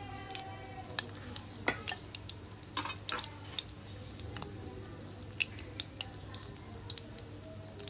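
Battered jackfruit pakoras deep-frying in hot oil in a kadhai: a quiet sizzle with scattered crackling pops.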